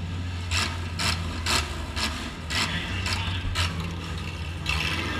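Demolition derby car's engine running low and steady, heard from inside the gutted cabin. Over it comes a string of about eight short, sharp bangs, roughly one every half second.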